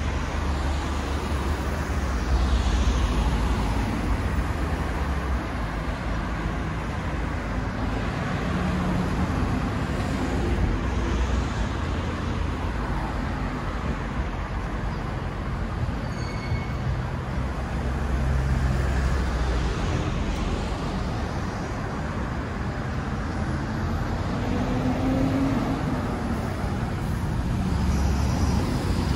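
Road traffic: several cars passing one after another, with a steady low rumble of engines and tyres that swells as each one goes by.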